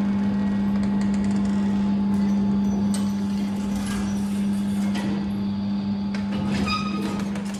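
A large motor-driven machine sculpture of metal wheels running, with a steady hum and irregular metallic clanks and knocks from its moving parts.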